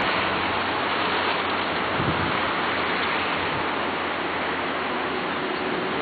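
Steady wash of ocean surf breaking on the beach, an even hiss of white water. A faint steady hum comes in near the end.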